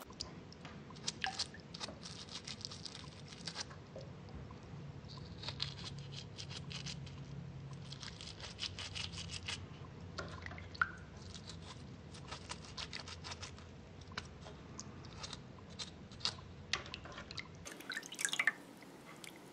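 Faint dripping and splashing of water in a glass bowl as a small wet pyrite crystal is rinsed. Several bursts of quick scratching come as mud is picked and scrubbed off the crystal with a small pick.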